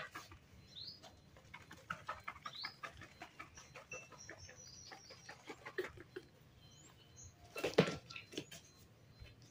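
Small birds chirping faintly in the background, with scattered light taps and rustles, and one sharp hand clap about three-quarters of the way through.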